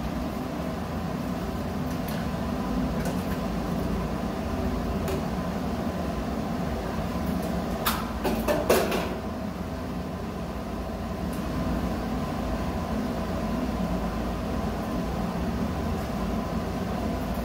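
Steady low machinery hum with several faint steady tones over it. A short cluster of clicks and knocks comes about eight to nine seconds in.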